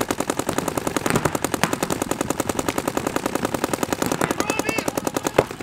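Paintball markers firing in rapid streams, well over ten shots a second, without a break.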